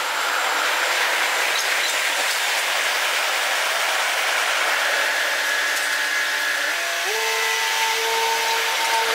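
Steady machinery noise with a hiss. About seven seconds in, a humming tone steps up in pitch and then holds steady.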